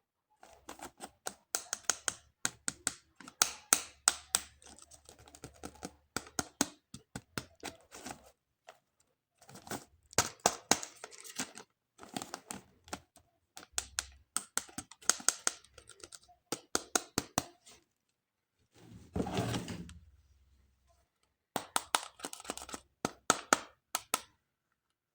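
Toy packaging being handled and opened by hand: bursts of rapid, crisp clicking and crackling of plastic and cardboard, with a duller rustle about nineteen seconds in.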